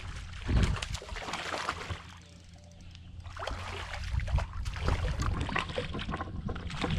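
A hooked bass splashing and thrashing at the surface beside a kayak as it is reeled in and grabbed by hand, with water sloshing against the hull. The splashing comes in bursts, with a quieter lull about two seconds in.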